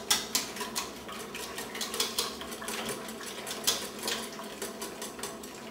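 A utensil clinking against a mixing bowl as pie filling is stirred or beaten, about three or four quick clicks a second.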